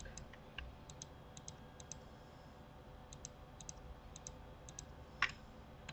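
Faint clicking of a computer mouse and keyboard: short clicks, mostly in quick pairs, every half second or so, with one louder click near the end.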